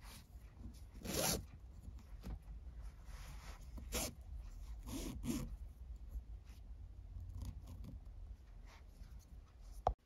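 Nylon paracord being drawn through the loops of a woven paracord collar, a series of soft rasping swishes of cord sliding against cord, the loudest about a second in, at four seconds and around five seconds.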